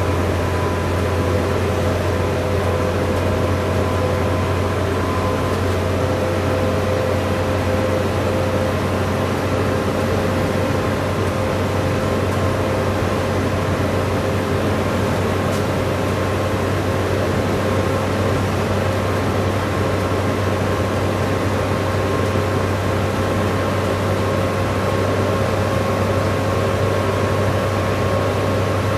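Interior of a moving bus: steady low drone of the engine and road noise, with faint steady whining tones above it.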